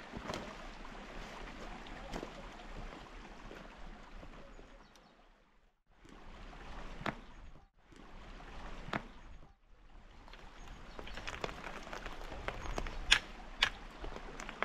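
Rustling as a jacket and bag are set down on stony ground, then a long pole knocking among the branches of a thorny tree, with sharp taps and clicks that come thicker near the end, the loudest about 13 seconds in.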